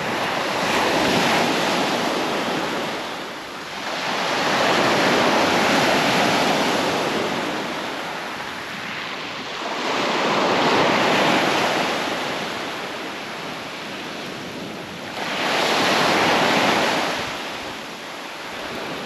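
Small waves breaking and washing up a sand and shingle beach, the surf swelling and fading about four times, roughly every five seconds.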